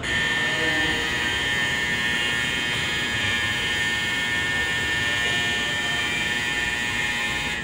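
Shinkansen platform departure bell ringing steadily, starting suddenly and cutting off after about seven and a half seconds: the signal that boarding is ending and the train is about to leave.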